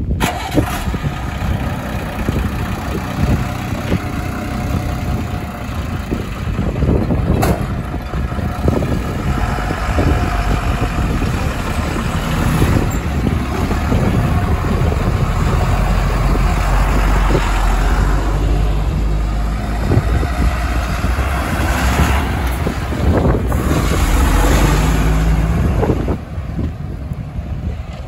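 Heavy diesel vehicle engine running steadily, its deep low end strongest in the second half, with a sharp click about seven seconds in.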